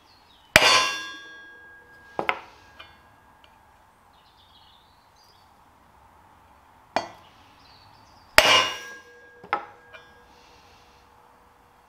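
Mallet blows on a block of wood driving the pivot pin bush into a Ferguson TED20's front axle beam. There are two heavy clanging blows about eight seconds apart, each ringing on for about a second, with lighter knocks in between.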